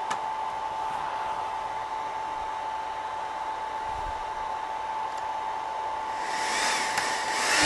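Steady whir of a switching power supply's cooling fan with a thin steady whine, and a couple of faint clicks as the clamps go on. About six seconds in, a louder, hissier fan noise comes up as the connected GX-E-CS2 compressor's cooling fan starts.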